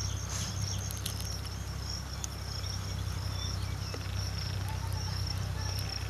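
Insects chirping in a steady, high-pitched pulsing trill, over a low steady rumble.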